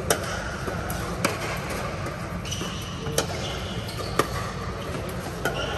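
Pickleball paddles hitting a hollow plastic ball in a doubles rally: four sharp, loud pops about one to two seconds apart, then fainter pops near the end. A steady low rumble runs underneath.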